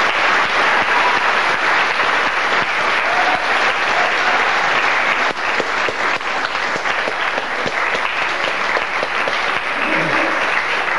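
Theatre audience applauding, a dense, steady clapping. A voice comes in faintly near the end.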